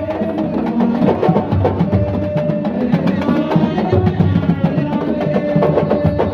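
Music with dense, fast drumming and a few long held notes above it.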